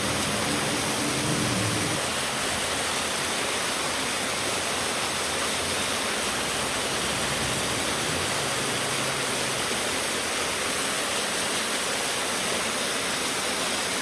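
Waterfall rushing steadily. A low hum is heard at the start and dies away about two seconds in.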